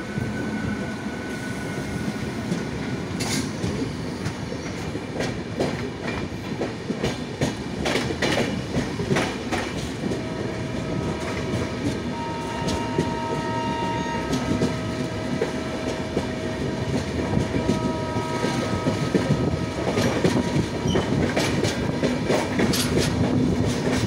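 Eastern Railway EMU local train running at speed, heard from its open doorway: a steady rumble with clickety-clack from the wheels over rail joints. A few thin whistling tones come and go midway.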